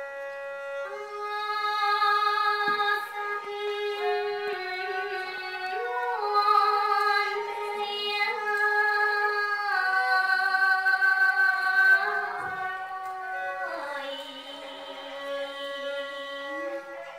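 Smot, Khmer chanted Buddhist poetry: a woman's solo voice holding long notes and sliding between pitches in an ornamented melody.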